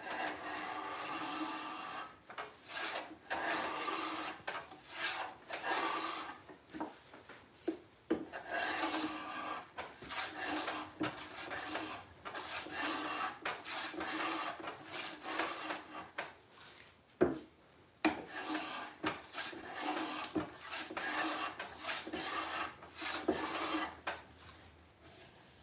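Steel hand plane shaving wood from a drawer side in repeated strokes, each about a second long, with short pauses, as the side is trimmed flush with the end grain of the drawer front to fit the drawer. A single sharp knock about two-thirds of the way through.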